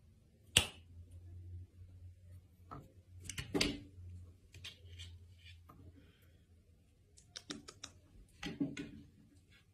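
Faint, scattered clicks and taps of a plastic feeding syringe being handled on a plate of food: one sharp click about half a second in, then small clusters of taps, the last two as the syringe is lifted to feed the fledgling.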